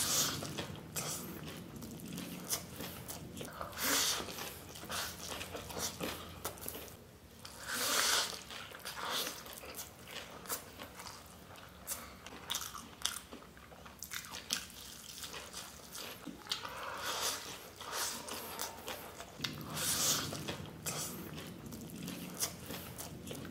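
Close-miked eating sounds: a man biting and chewing big handfuls of spicy chow mein noodles. The wet mouth noises come irregularly, with louder bites every few seconds.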